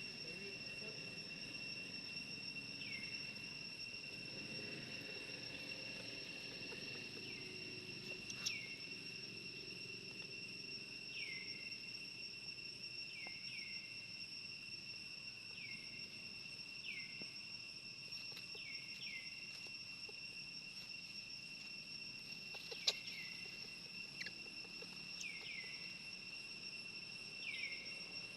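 Steady high-pitched drone of insects, with a dozen or so short falling chirps scattered through it and a few sharp clicks, the loudest about two-thirds of the way in.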